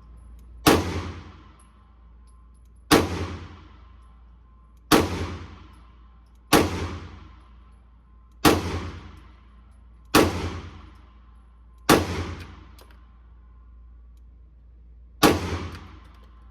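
Eight pistol shots at a steady pace, roughly one every two seconds with a longer gap before the last, each echoing off the walls of an indoor firing range.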